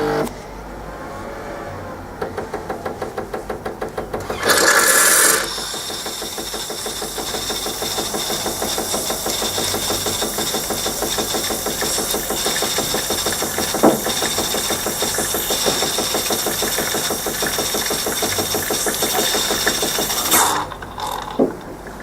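Jura Giga X7 bean-to-cup coffee machine running its milk-system cleaning cycle. A pump pulses rapidly, about seven beats a second, for a couple of seconds, and a loud hiss follows about four seconds in. Then comes a steady pumping drone with hiss for about fifteen seconds, which cuts off shortly before the end.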